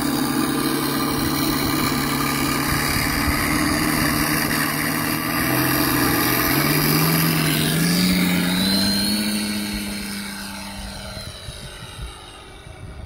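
Electric RC P-47 Thunderbolt model's onboard Mr RC Sound 4.1 system playing a simulated radial-engine sound through its transducer speakers, mixed with propeller noise. The engine note climbs in pitch about halfway through as the throttle opens for takeoff, then fades as the plane climbs away.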